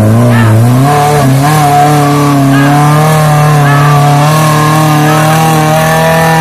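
Suzuki Jimny 4x4's engine revving up in steps, then held at high revs under load as it climbs out of a mud hole.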